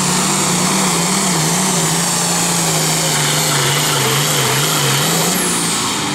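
Turbocharged International diesel farm tractor running flat out as it drags a weight-transfer pulling sled, the engine note wavering slightly under the load. A high turbo whistle sits above it and drops in pitch near the end as the engine eases off.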